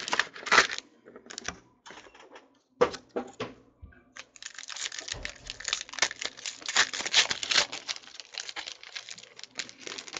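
Foil wrapper of a Panini Prizm trading-card pack crinkling and tearing as it is opened by hand. A few scattered clicks and crackles come first, then dense crinkling for about four seconds from a little after halfway.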